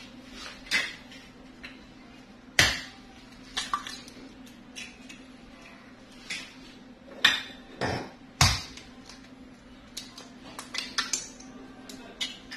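Eggs being cracked into a glass mixing bowl: sharp, separate taps and clicks of eggshell against glass, a few seconds apart, loudest in a quick cluster of three taps about two thirds of the way in.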